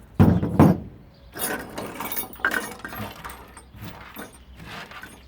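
Metal scrap parts from a stripped washing machine clanking and clinking as they are handled and dropped. Two loud knocks come in the first half second, followed by a few seconds of irregular rattling and clinks.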